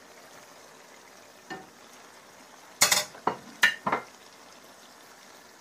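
A metal spoon stirs chopped tomatoes into a steel pan of chicken and okra curry. About three seconds in it knocks and scrapes against the pan four times in quick succession, with one lighter knock before that, over a faint steady sizzle from the pan.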